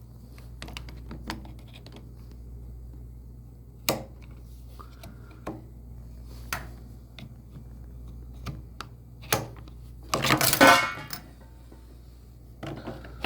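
Scattered clicks and knocks from the clips and cover of a water heater's gas control valve being worked loose by hand, with a louder scraping rattle about ten seconds in, over a low steady hum.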